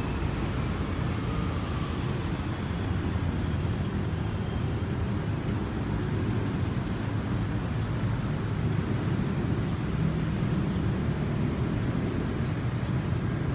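Steady low rumble of road traffic in a city street, with no voices over it.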